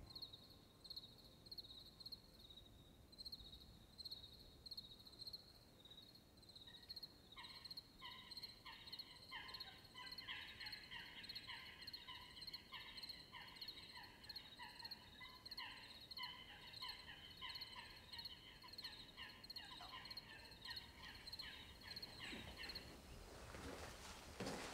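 Faint crickets chirping in a steady, high, pulsing trill. About seven seconds in, a second, lower chirping call joins in with a quick regular rhythm, and it stops shortly before the end. A brief rustling noise comes right at the end.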